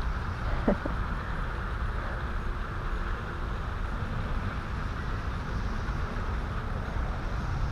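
Steady low rumbling background noise with no clear events, and one brief pitched call under a second in.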